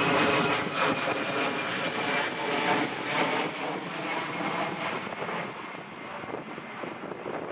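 Airliner touching down and rolling out: a loud rush of engine and air noise with many rapid jolts and rattles from the landing gear on the runway, slowly getting quieter.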